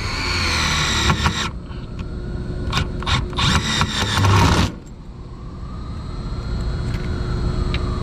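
Screw extractor bit grinding and scraping against a stripped screw in two bursts, one at the start and another from about three to four and a half seconds in. It slips on the screw without getting a grip.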